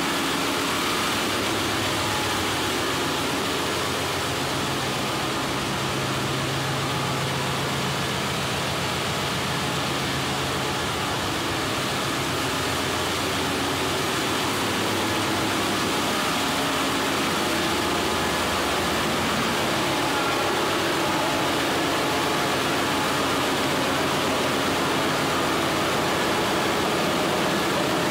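Steady din of running machinery in a ship's engine room, dense noise across the range with a few low steady hum tones mixed in.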